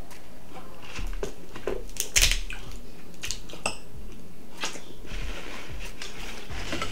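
Eating sounds from a seafood boil: scattered clicks and clatter of shells and utensils handled at the table, the loudest a few sharp cracks about two seconds in.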